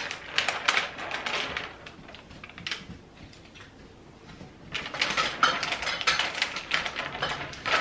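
Crisp crackling and clicking of a plastic sheet of window clings being handled and peeled, in two busy spells with a quieter stretch in the middle.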